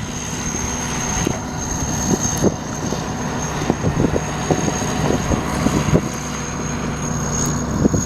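T-150K tractor's diesel engine running steadily under load, with repeated short knocks and rattles over it.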